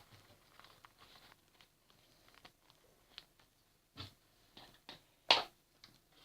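Scattered soft clicks, taps and rustles of small objects being handled, with one louder short burst of noise about five seconds in.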